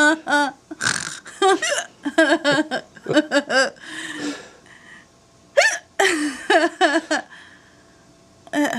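A woman with the hiccups, hiccuping and laughing in short, repeated vocal bursts, with a quieter stretch near the end.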